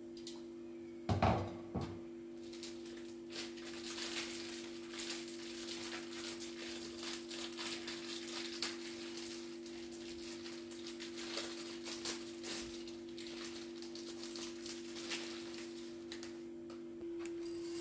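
Water heating in a saucepan on a portable gas stove, with fine, dense crackling and ticking as it nears the boil. A single knock about a second in.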